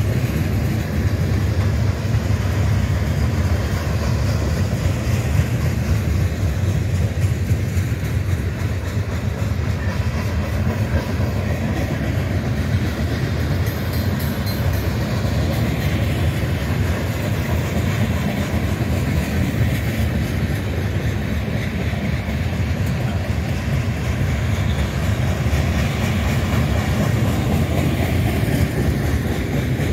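Freight train of centerbeam flatcars loaded with lumber rolling past: a steady, deep rolling noise of steel wheels on the rails, without letup.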